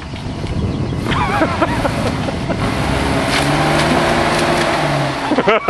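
Nissan Pathfinder's engine running under load as the 4x4 crawls over dirt mounds, holding a steady note through the middle. Voices call out briefly about a second in and again loudly near the end.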